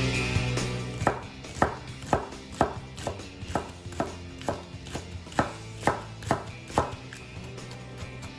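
A cleaver chopping spring onions on a plastic cutting board, steady strokes about two a second that start about a second in and die away near the end.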